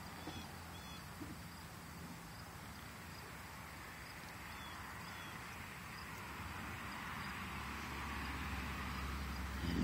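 A Miniature American Shepherd puppy gnawing on raw chicken over a steady outdoor hiss of insects, the chewing giving a few soft clicks about a second in. The hiss swells over the last few seconds, and a short knock comes right at the end.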